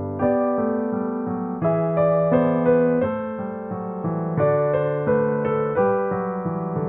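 Background piano music: chords and melody notes struck one after another, each fading away before the next.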